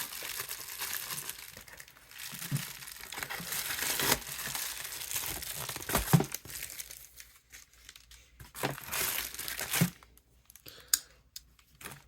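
Shipping package being cut open with a box cutter and pulled apart: crinkling and tearing of the packaging, then a few sharp clicks and short rustles near the end.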